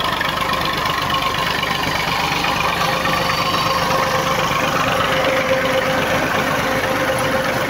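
Tractor engine running steadily under load, driving a tractor-mounted tubewell boring rig as it drills, with a constant level and a steady hum.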